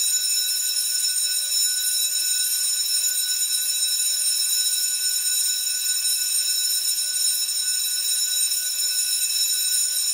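School bell ringing in one long, unbroken, steady ring.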